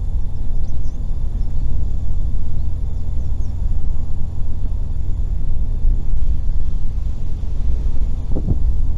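Steady low rumble of the car's tyres and engine heard from inside the cabin while driving, with a few faint high chirps in the first few seconds.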